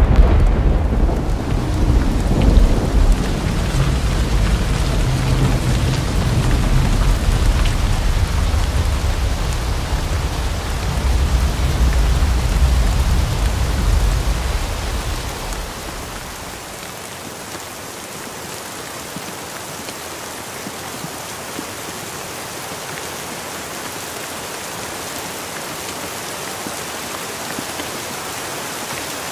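Heavy rain pouring steadily, with a loud rolling peal of thunder that rumbles on for about fifteen seconds and then dies away, leaving only the even hiss of the downpour.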